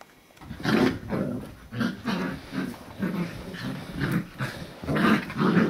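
English setter puppies growling at each other as they play-fight, a run of short growls starting about half a second in.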